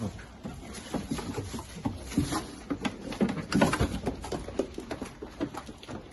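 Goats jostling and feeding in their pen: a patter of irregular small knocks, hoof steps and rustles, busiest and loudest about three to four seconds in.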